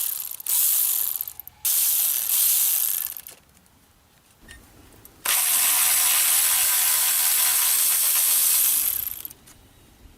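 Hand ratchet with a triple-square bit clicking as it backs out bolts on an Audi 3.6 VR6 engine, in several runs: three short ones in the first three seconds, then a longer run of about four seconds starting about five seconds in.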